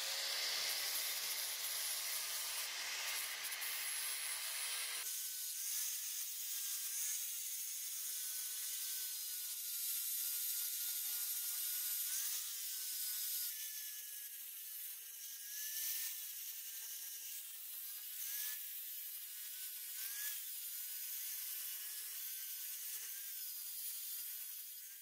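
Angle grinder running with an abrasive disc pressed against a wooden sword grip, the disc scraping and grinding away the wood. Over the grinding, the motor's steady whine dips and recovers every second or two as the disc is leaned into the wood.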